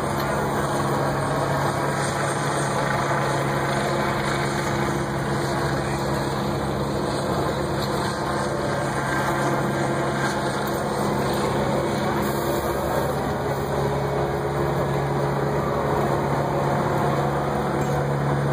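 Fire truck's diesel engine idling, a steady low hum with an even pitch.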